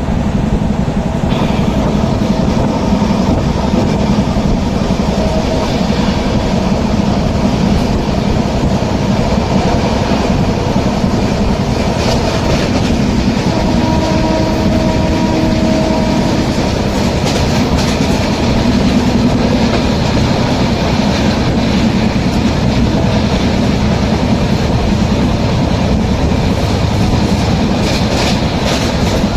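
Moving passenger train heard from inside an LHB coach: a loud, steady running noise of wheels on the rails, with clicks from rail joints coming more often in the last part. A brief steady tone sounds for about two seconds midway.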